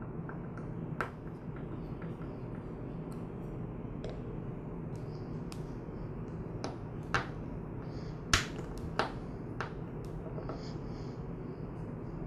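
A handful of small, sharp clicks and ticks as a screwdriver turns the screws on a small two-stroke carburetor's metal body, over a steady low hum.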